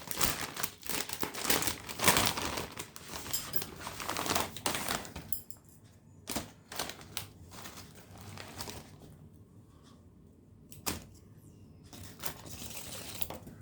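Kettle-chip bag crinkling and rustling as it is opened and handled, dense for about the first five seconds, then scattered light clicks and crackles.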